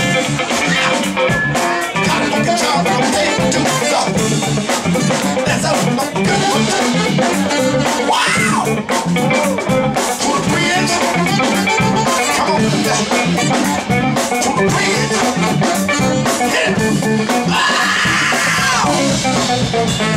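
Live band playing with saxophones over a steady beat.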